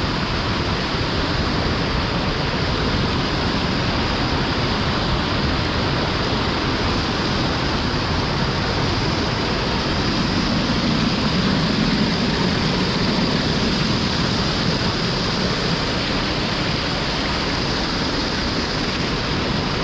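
Steady, loud rush of fast-flowing floodwater in a storm-swollen river at a cave, unbroken throughout.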